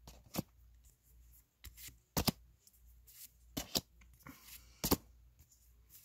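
Pokémon trading cards handled in the hands, each card slid from the back of a small stack to the front with a short crisp snap, about six times, with a brief papery rustle a little after four seconds.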